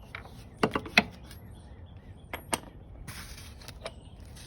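A few sharp, irregular metallic clicks and taps as the oil drain cap is unscrewed from the engine's underside.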